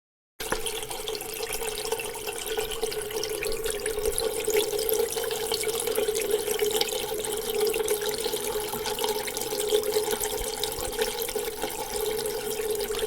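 Water running from a tap into a sink: a steady splashing stream that starts about half a second in.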